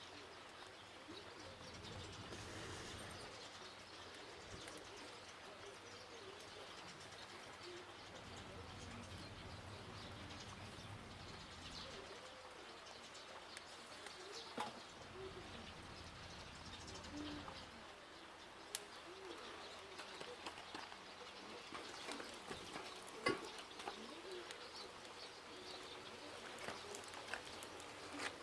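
Faint bird cooing, short low notes repeated over and over, over a soft background hiss, with a few sharp clicks, the loudest about three quarters of the way through.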